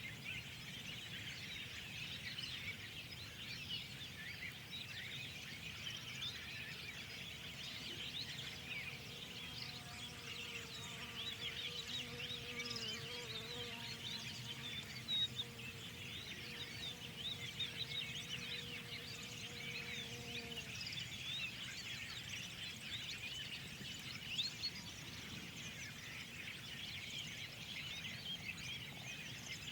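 Many songbirds chirping and singing at once, a dense unbroken chorus of short, high calls over a low steady outdoor background noise. A faint steady hum comes in about eight seconds in and fades out about two-thirds of the way through.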